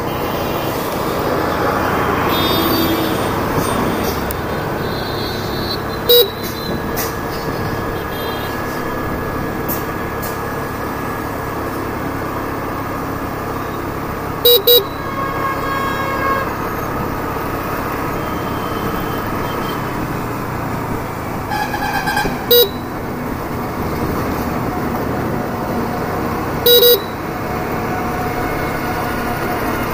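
Hero Destini 125 scooter's single-cylinder four-stroke engine running steadily under way, over road noise. A horn sounds in short loud beeps: once about six seconds in, twice around the middle, once more later, and a double beep near the end.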